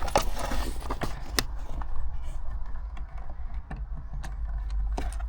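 Scattered small clicks and taps of plastic trim and a small tool being worked while a dash cam mount is fitted, over a steady low rumble.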